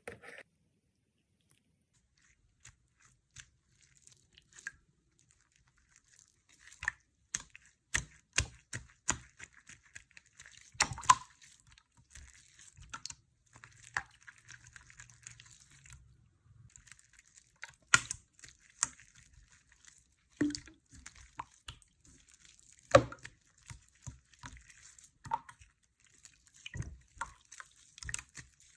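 Water slime being mixed and handled by hand: irregular sticky wet clicks and squelches. There are only a few in the first six seconds, then they come thick and fast.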